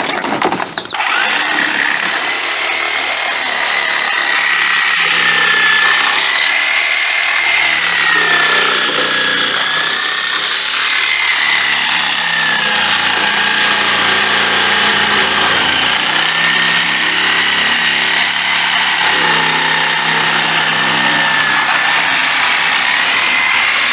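Power tool running continuously under load on the Jeep, its high whine wavering up and down as the load changes.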